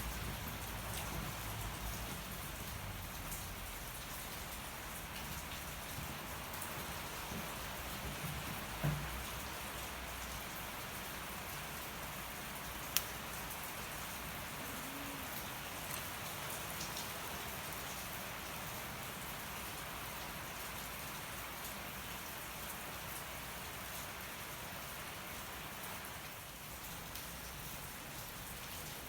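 Steady rain falling, with scattered small crackles from a burning campfire and one sharper pop about 13 seconds in.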